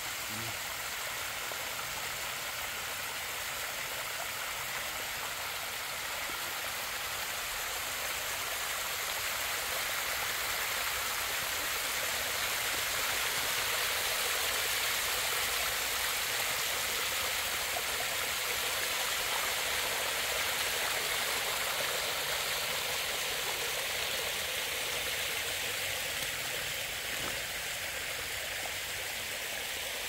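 Small waterfall: water sheeting and splashing down a sloping rock face, a steady rushing that swells a little in the middle.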